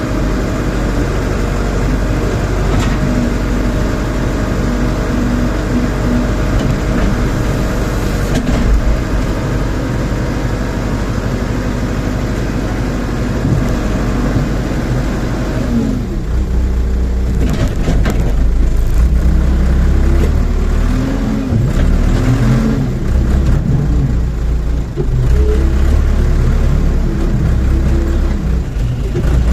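Rondon backhoe loader's diesel engine running steadily while it works. About halfway through, the low rumble gets heavier and the engine note rises and falls repeatedly as it takes load.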